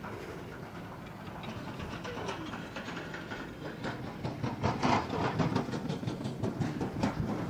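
Single-seat fixed-grip chairlift rattling and clacking as it rides along the haul rope, with a fast run of clicks in the second half that is louder than the rest.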